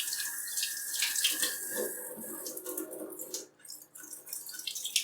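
Kitchen tap running into the sink while apples are rinsed under it; the water cuts off about three and a half seconds in, followed by a few light knocks.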